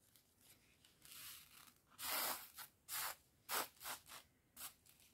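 Small round resin diamond-painting drills scattered onto a stretched canvas and spread about by hand: faint, with a longer rustle about two seconds in, then a run of short scratchy swishes, about three a second.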